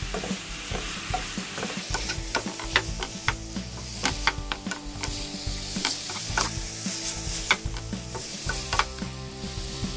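Wooden spatula stirring shrimp and masala in a frying pan, knocking against the pan many times at an uneven pace over a low sizzle of frying.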